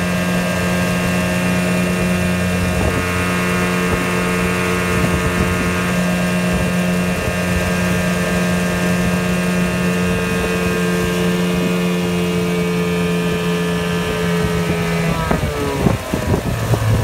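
1994 Evinrude 4 hp Deluxe outboard, a two-cylinder two-stroke, running steadily at speed under way. About fifteen seconds in, the engine speed drops and its note falls.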